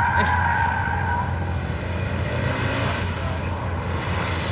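Mitsubishi Lancer Evolution VIII's turbocharged 4G63 four-cylinder driven hard through a hillclimb corner, with a steady low engine note and its tyres squealing for the first second or so. Near the end the car passes close by with a rush of tyre and wind noise.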